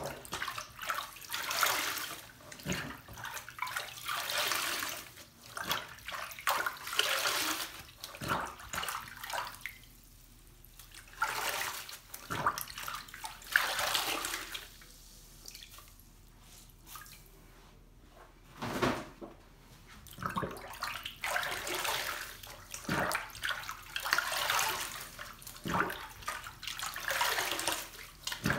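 Large foam sponges squeezed, plunged and rubbed by hand in a sink basin of soapy water: irregular bursts of splashing and sloshing, with quieter pauses near the middle.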